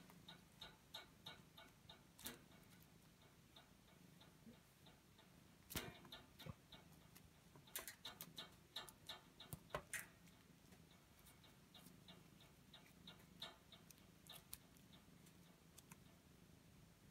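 Faint light clicks and taps over a near-silent room: a quick run of about three ticks a second at first, then scattered clicks with a few sharper ones around the middle.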